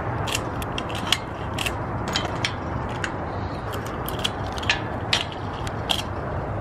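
Handling noise: irregular sharp clicks and light rattles, about a dozen spread unevenly through the few seconds, over a steady low rumble.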